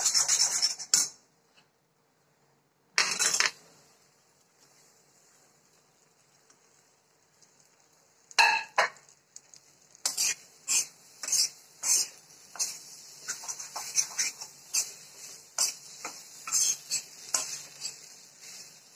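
Metal spatula scraping and stirring in an iron kadai, first through a chilli-powder paste and then through diced raw potatoes. A louder clatter comes about eight seconds in, after a few near-silent seconds. After that come short scraping strokes in a steady rhythm, about three every two seconds.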